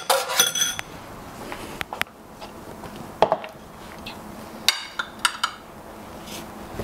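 Knife and dishes clinking while hard-boiled eggs are cut over a salad bowl: a quick cluster of light clinks with a short metallic ring, then scattered single taps and clicks, a few of them ringing briefly.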